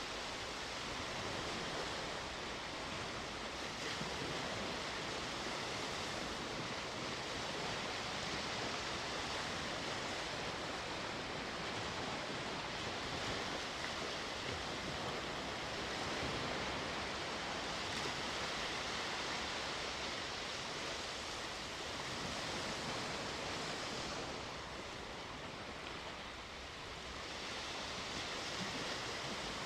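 Sea waves washing onto the shore in a steady, even surf hiss, easing off briefly near the end.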